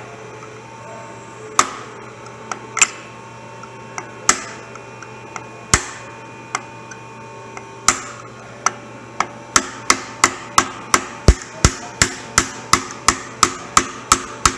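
Hammer striking a pin punch, tapping the small bull gear's dowel pin down through a Bridgeport step-pulley J-head housing: sharp metallic taps, spaced one to two seconds apart at first, then quickening to a steady run of about three taps a second from about nine and a half seconds in.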